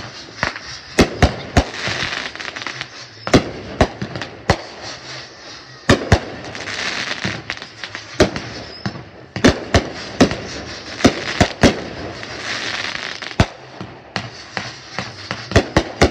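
Aerial fireworks going off: a long, irregular run of sharp bangs, some in quick clusters, with stretches of hissing crackle between them.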